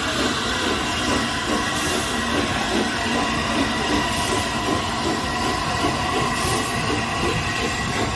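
Train rolling past on the rails, the wheels clattering steadily with a thin, continuous wheel squeal.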